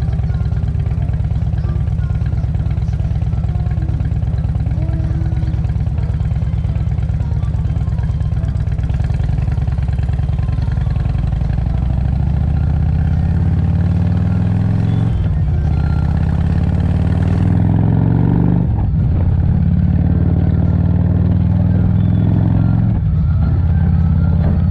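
Motorcycle engine idling steadily at a stop, then pulling away and accelerating up through the gears: the pitch climbs in three runs, each broken by a short dip at an upshift in the second half.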